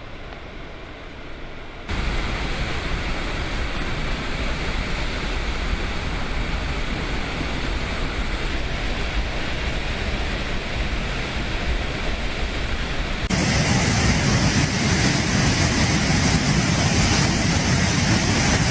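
Fast floodwater rushing, a steady loud noise of moving water. It jumps louder about two seconds in, and again, louder and hissier, about thirteen seconds in.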